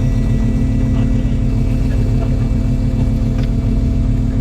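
Fishing boat's engine running steadily: a constant low rumble and hum, with a few faint ticks over it.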